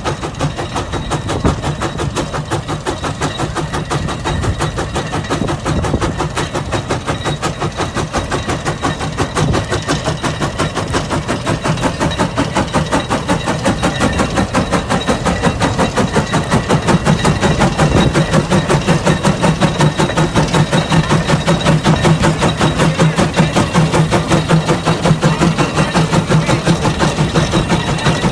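Case 150 hp steam traction engine working under heavy load pulling a 36-bottom plow, its exhaust chuffing in a fast, steady beat that grows louder through the second half.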